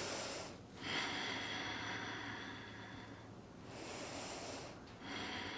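A woman's slow, audible breathing: one long breath of about two and a half seconds, then two shorter ones.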